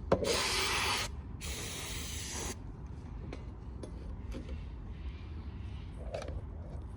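Two short hissing bursts of pressurised spray onto a small-engine carburettor part, the first starting at once and the second about a second and a half in, while it is cleaned. After them come a few faint clicks of small metal parts being handled.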